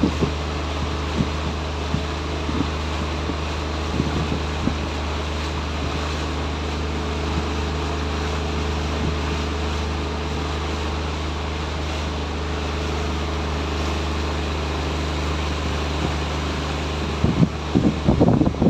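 A small fishing boat's engine running at a steady pitch, with wind noise on the microphone. A few loud irregular buffets come near the end.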